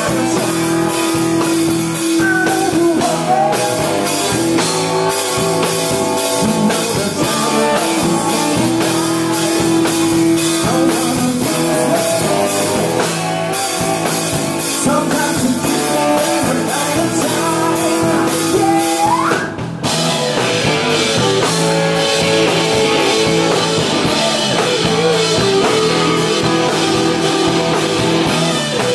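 Live rock band playing loud: electric guitars, bass and drum kit, with a male singer. The band breaks off briefly about two-thirds of the way in, then comes back in with heavier cymbals.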